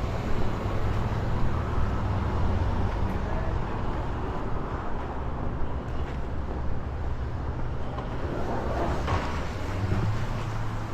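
Steady road and engine noise inside a moving car: a constant low hum with tyre noise.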